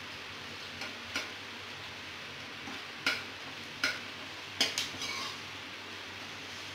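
Sliced onions sizzling in oil in an aluminium kadai, with a steady hiss, while a metal ladle stirs them and knocks and scrapes against the pan several times, most around the middle.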